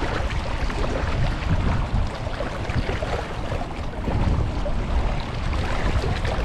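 Wind buffeting the microphone in a gusty low rumble, over a steady rush of sea water.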